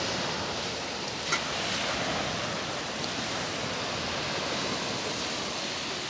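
Small waves breaking and washing up a pebble beach in a steady surf hiss, with a short sharp click about a second in.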